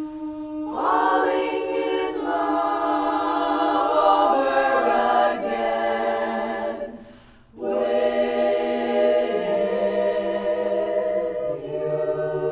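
A women's barbershop chorus singing a cappella in four-part harmony, with held chords and a brief breath break about halfway through before the singing resumes.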